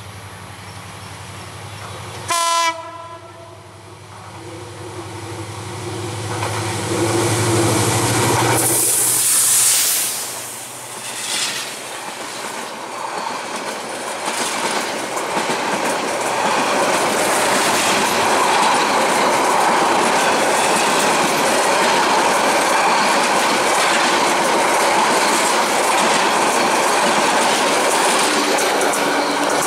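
A short horn blast from a diesel passenger locomotive about two seconds in. Its engine then grows louder and rushes past around nine seconds in, followed by the coaches rolling by with a steady clickety-clack of wheels over rail joints.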